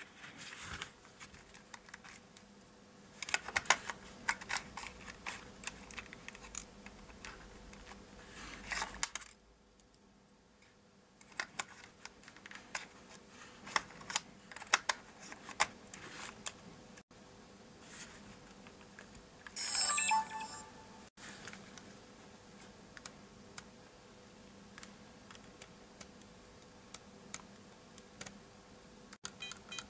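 Hands working a Sony DSC-W830 compact digital camera: many small sharp clicks and taps from its metal body, battery and battery door as the battery goes in. A brief louder burst comes about twenty seconds in, and short electronic beeps start right at the end as the camera's buttons are pressed.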